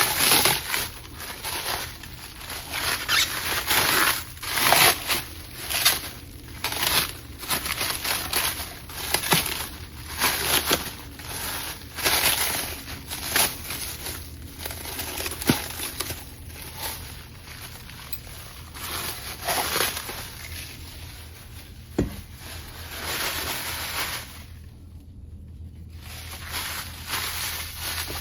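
Wrapping being pulled off and crumpled by hand, with irregular crinkling and tearing and a few sharp knocks.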